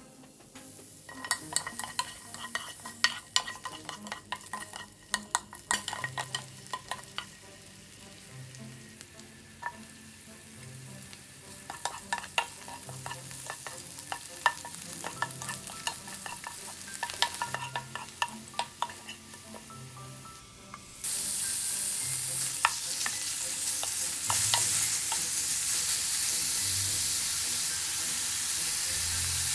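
Garlic and chopped green onion frying in oil in a nonstick pan, with a faint sizzle and frequent clicks and scrapes of a spatula stirring. About two-thirds of the way through, the sizzle jumps suddenly to a loud, steady hiss as pieces of beef fry in the hot pan.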